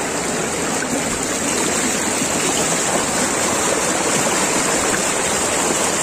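Steady rushing of water from a small mountain waterfall and its stream.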